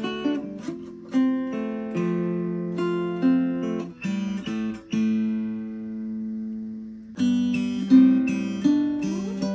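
Baby Taylor three-quarter-size acoustic guitar, freshly set up, played with picked notes and chords. About five seconds in, a chord is left to ring and fade for a couple of seconds before the playing picks up again.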